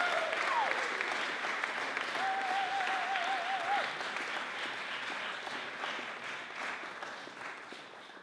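Audience applauding after a song, the clapping thinning out and fading away, with a brief wavering high tone in the middle.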